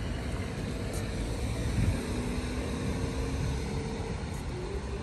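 Car traffic on a town street: a low rumble of engine and tyres, with a faint steady engine hum through the middle.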